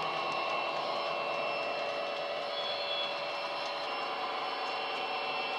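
Recorded Class 57 diesel engine sound from a Coastal DCC sound file on a LokSound decoder, played through the small speakers of a Bachmann OO-gauge model. The engine drone runs steadily under power, with a steady high whine over it.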